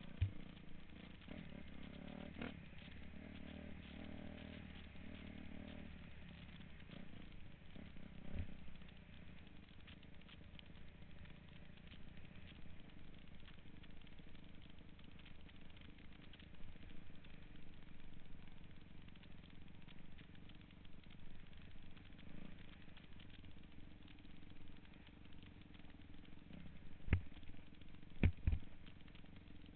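Dirt bike engine running as the bike climbs a rough gravel trail, its pitch stepping up and down with the throttle in the first few seconds. A few sharp knocks come near the end.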